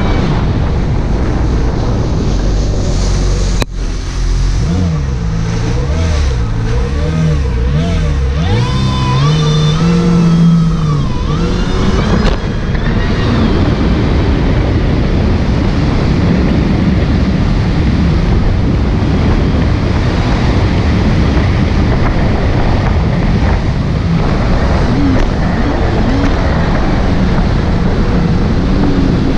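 Kawasaki jet ski running at speed on open water, its engine pitch rising and falling with throttle changes for several seconds before settling. After that, a steady rush of wind and water spray over the hull.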